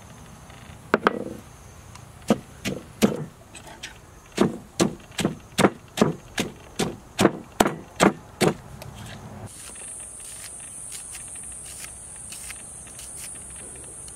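Wooden pestle pounding shredded green mango in a wooden mortar: a run of thuds, about two or three a second, that stops a little past halfway.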